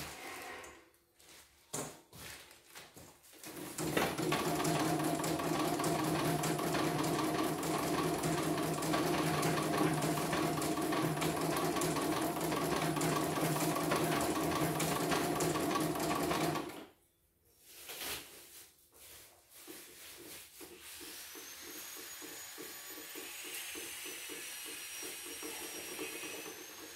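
CNY computerized home embroidery machine stitching at speed: a steady mechanical hum with a fast, even needle rhythm. It stops suddenly about 17 seconds in. After a few clicks it runs again more quietly, with a high whine that rises and falls.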